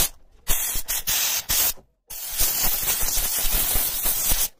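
Vapodil dry steam cleaner's gun jetting steam with a loud hiss: short bursts in the first two seconds, then one steady jet of about two and a half seconds that cuts off near the end.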